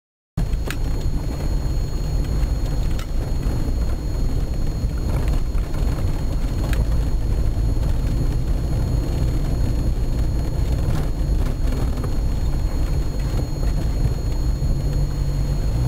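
Vehicle driving along a dirt track, heard from inside the cabin: a steady low engine and road rumble that starts abruptly about half a second in, with a few light knocks from bumps in the track.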